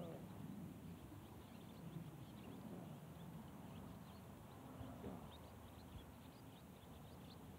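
Near silence with faint outdoor ambience: a low steady rumble, scattered faint short high chirps, and a brief faint falling tone about five seconds in.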